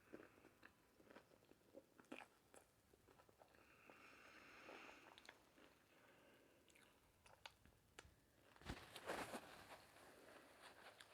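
A person chewing and biting into tacos: scattered small wet mouth clicks and crunches, with a louder crunchy bite about nine seconds in.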